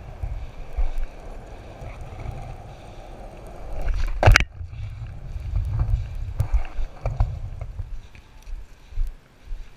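Skateboard wheels rolling over pavement with a steady rumble, then one loud sharp clack about four seconds in, as the board strikes the ground. Lighter rolling and a few knocks follow, dying away near the end.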